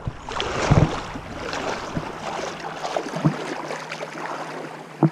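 Water sloshing and splashing around legs as someone wades through a shallow, rocky river, with a dull thump every second or two as the steps land.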